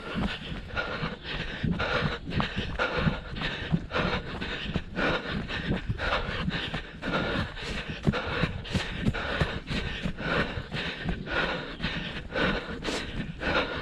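A trail runner's footsteps on a dry, leaf-covered dirt path in a steady running rhythm, with panting breath and rustling from the body-worn camera's movement.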